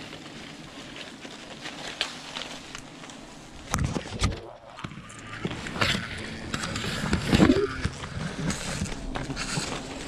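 Rustling and handling noise with several sharp knocks, the loudest about seven and a half seconds in, where a short pitched sound rises with it.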